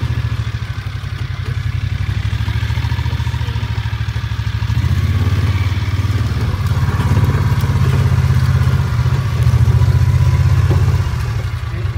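Gator utility vehicle's engine running steadily with a low pulsing drone, growing louder about five seconds in and easing off near the end.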